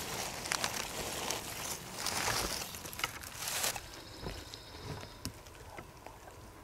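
Dry fallen leaves rustling and crunching as a person shifts about in the leaf litter, stopping a little over halfway through; after that only a few faint crackles.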